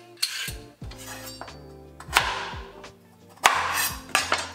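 Background music with a beat: held low notes, deep bass kicks that fall in pitch, and a few sharp hits.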